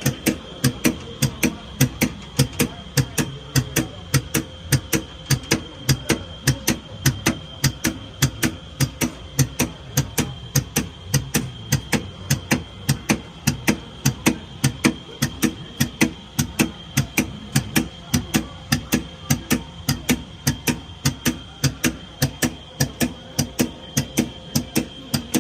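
Rapid, evenly spaced clicking, about three clicks a second and unbroken, over a steady high whine, from a Dainichi Kinzoku Kogyo DL530x150 NC lathe with a faulty power supply: the sign of the power-supply fault.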